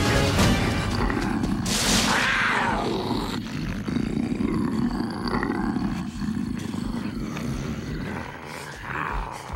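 Big-cat roar and growls from an animated white tiger and cheetah: a loud roar about two seconds in, then lower, rough growling that fades toward the end.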